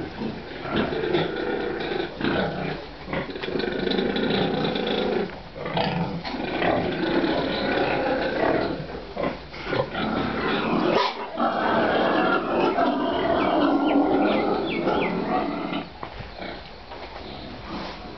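Domestic pigs grunting and squealing almost continuously, with a short break about eleven seconds in, then quieter near the end.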